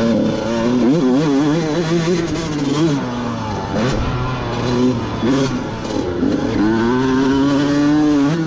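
Two-stroke Honda dirt bike engine being ridden hard, revving up and down: the pitch wavers quickly for the first few seconds, dips about four seconds in, then climbs into a long high pull near the end.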